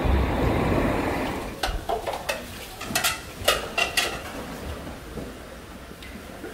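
Pots, dishes and utensils clattering in a busy market food-stall kitchen: a run of about eight sharp metallic clinks and clanks over a couple of seconds. Before them, a low rumbling noise fades out in the first second or so.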